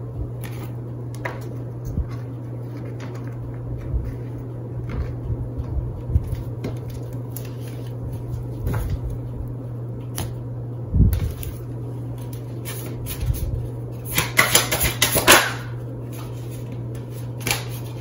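Tarot cards being picked up and laid out on a glass tabletop: scattered soft clicks and taps, a dull thump about eleven seconds in, and a quick flurry of crisp card sounds a few seconds before the end, over a steady low hum.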